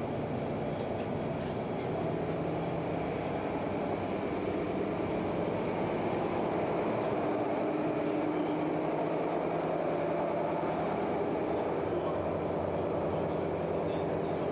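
Steady machinery drone inside a fireboat's below-deck compartment, with a few light knocks in the first couple of seconds.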